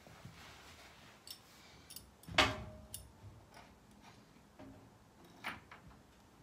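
Light clicks and clinks of small metal crib-assembly hardware (a bolt and Allen key) being handled at a crib leg, with one louder knock and a short metallic ring about two and a half seconds in.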